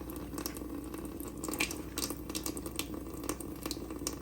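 Kitchen tap running a reduced stream into a garbage disposal drain as the disposal cleaner foams inside, with a steady low hum and scattered small crackles.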